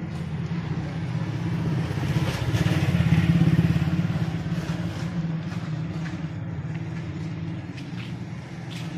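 Small motorcycle engine running steadily, growing louder a few seconds in and then easing off.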